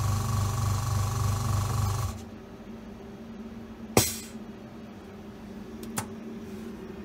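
OCA vacuum laminating machine's pump running with a loud steady hum, which stops about two seconds in. A sharp click with a short hiss follows about four seconds in, and a smaller click near the end, over a faint steady hum from the machine.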